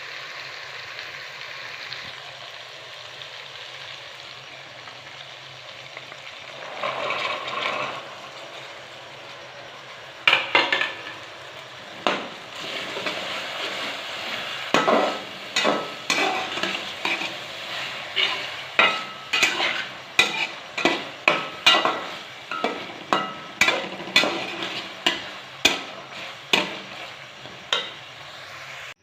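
Food sizzling in hot oil in a cooking pot. From about a third of the way in, a spoon stirs it, with many sharp knocks against the pot, coming faster near the end.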